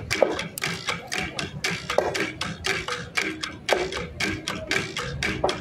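Traditional Cordillera-style percussion ensemble playing a fast, even rhythm of sharp struck strokes, about five a second, with a short falling tone recurring about every two seconds.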